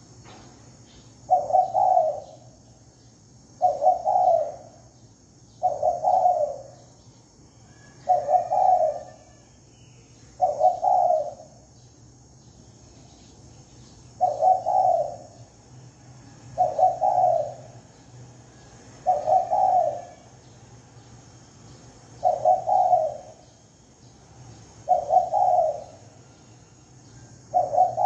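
A decoy spotted dove cooing: about eleven short coo phrases, each roughly a second long, repeated every two to three seconds with one longer pause about halfway. A faint steady hum sits underneath.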